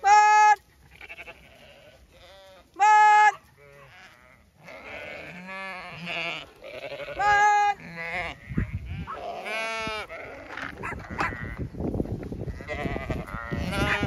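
Zwartbles ewes bleating repeatedly: four loud bleats stand out, with fainter ones between them. In the second half comes a jumble of scuffling and rustling as the flock crowds past.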